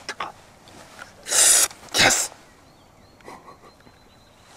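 A man's sharp, breathy exhale about a second in, then a hissed, whispered "yes" close to the microphone: excited breathing from a hunter whose shot has just dropped a bison.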